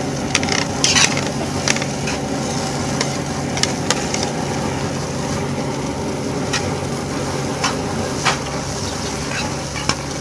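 Large pan of fried rice being stir-fried over a steady sizzle, with scattered sharp clicks and scrapes of the spatula against the pan.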